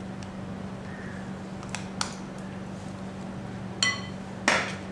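A spoon knocking lightly against a glass mixing bowl, with a short ringing clink a little before the end and a brief louder scrape just after it, over a steady low hum.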